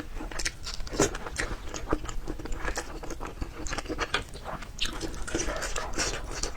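A person chewing raw round peppers up close: a rapid, irregular run of crisp, wet crunches.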